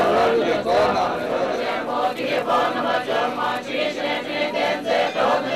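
A large group of Tibetans chanting a prayer together in unison, many voices blending into one continuous recitation.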